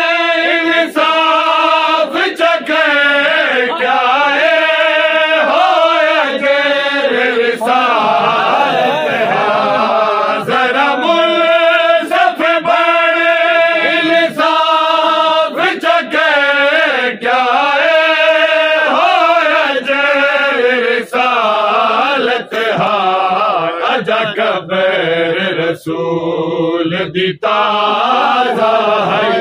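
A group of men chanting a noha, a Shia mourning lament, together in long sung phrases with short breaks between lines.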